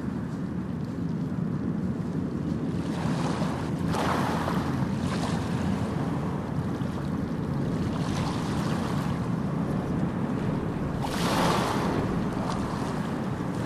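Steady rushing noise like surf or wind, swelling louder three times.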